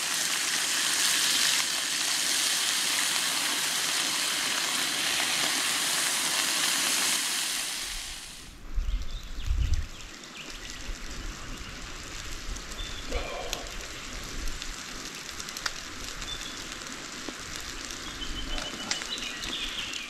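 Food sizzling in a hot frying pan, a loud steady hiss that cuts off suddenly about eight seconds in. After that comes quieter outdoor background with a few low rumbles of wind on the microphone.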